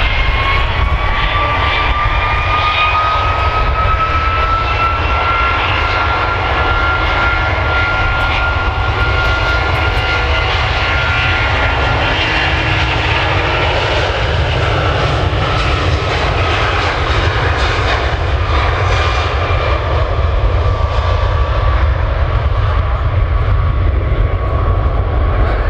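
Rolls-Royce Trent 700 turbofans of an RAF Airbus A330 MRTT Voyager at takeoff power during the takeoff roll. A loud, steady low rumble runs under a fan whine that rises in pitch over the first few seconds, then slowly falls as the aircraft moves past and away.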